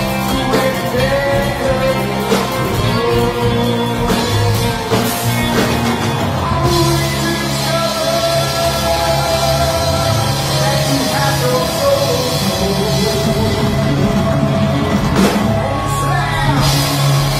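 Heavy metal band playing live: distorted electric guitars, bass, keyboards and drums under a male lead singer.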